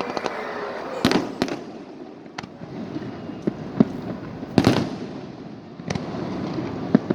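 Fireworks shells bursting overhead: a string of sharp bangs at irregular intervals, about eight in all, the loudest roughly halfway through.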